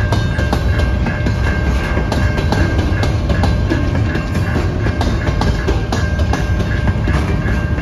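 Freight train's covered hopper cars rolling past at a level crossing: a steady heavy rumble with wheels clicking over the rail joints. A crossing warning bell rings over it in steady repeated strokes.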